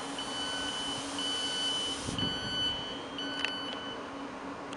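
Thameslink Class 700 electric multiple unit standing at the platform, its door warning sounding a string of high-pitched beeps, each held for most of a second, about one a second. Under it runs a steady low hum, with a couple of short clicks about three seconds in.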